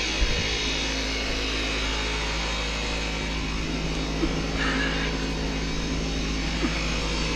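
Kubota tractor engine idling steadily, with a few light knocks of metal handling.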